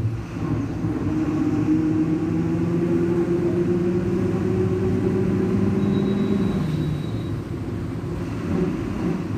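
VW 17-230 EOD city bus running with its MWM 6.12 TCE turbodiesel, the rear differential roaring loudly as a steady drone. The drone eases off about seven seconds in.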